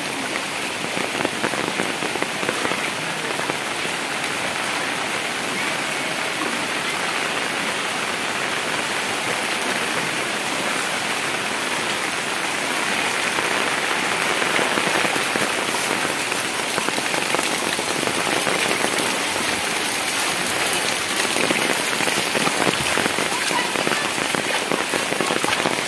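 Heavy rain falling steadily, a dense even hiss that grows a little louder about halfway through.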